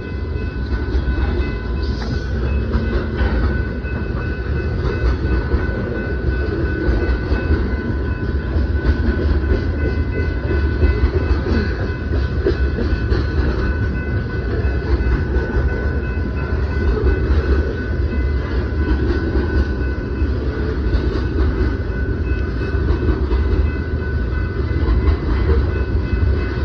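A freight train of covered hopper cars rolling through a grade crossing, with a continuous low rumble and clatter of wheels on rail. A steady high ringing tone sounds over it, strongest in the first several seconds and again near the end.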